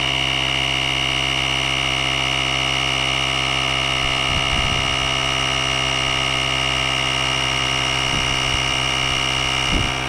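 Small rechargeable portable air compressor running steadily, a buzzing motor with a high-pitched whine, as it pumps air into an e-bike tire.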